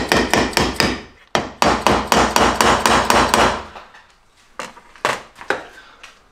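Rapid hammer blows, about five a second, in two runs with a short break between them, then a few weaker taps later on: a part being driven into a Simson engine case.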